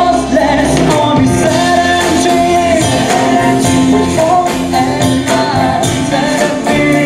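Live pop-rock band playing on stage: drums, electric guitar, bass guitar and keyboard, with a vocalist singing a wavering melody over a steady beat.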